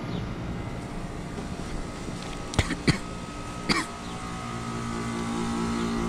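Outdoor heat-pump units running in heat mode: a steady compressor and fan hum with several held tones, and three sharp knocks a little before the middle. Toward the end the hum grows louder, with a wavering, pulsing tone, from a unit whose motor is taken to be stuck.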